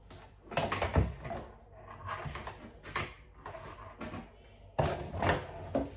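Kitchen handling noises: a series of knocks and clatters of cookware being moved and set down, the loudest about a second in and again near the end.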